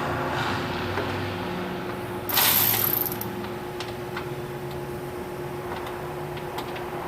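Hand ratchet wrench clicking as bolts are turned on the AC compressor bracket, with a short loud burst of noise about two and a half seconds in and a steady hum underneath.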